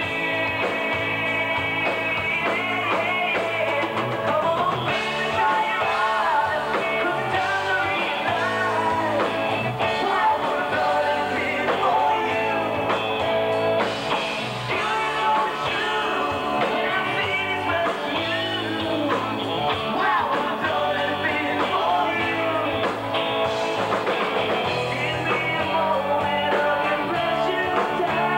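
Live rock band playing: electric guitar, bass and drums, with lead vocals.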